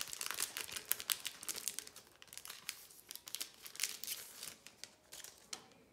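Foil wrapper of a Donruss Optic baseball card pack crinkling and crackling as it is opened by hand. The crackling is busiest in the first four seconds and dies away shortly before the end.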